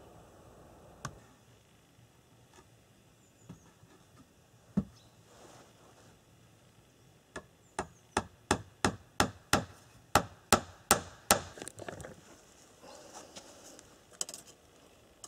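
Hammer blows on a wooden board, nailing planking onto a shed wall. A few scattered knocks come first, then a run of about a dozen even blows at roughly three a second, getting louder as they go.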